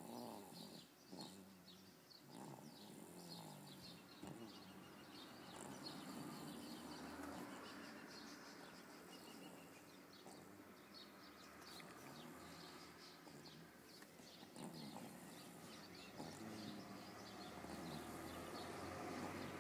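A baby snoring softly in her sleep, with faint high chirps in the background.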